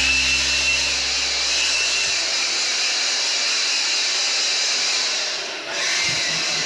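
A small electric machine running steadily with a rushing noise and a faint high whine, dipping briefly about five and a half seconds in.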